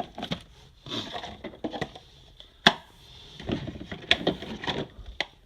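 Plastic food storage containers and lids clattering and clicking as they are handled and sorted into a box, in irregular bunches, with one sharp knock about two and a half seconds in.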